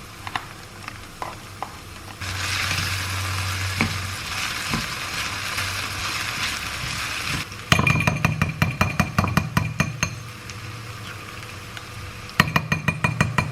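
Food sizzling in a frying pan, then rapid, even tapping and clinking of a utensil against cookware. The tapping stops for about two seconds and starts again near the end.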